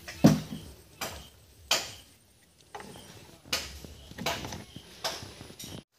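Plastic knapsack sprayer tank being handled as formalin solution is mixed in it: about half a dozen irregular knocks and scrapes, each dying away quickly.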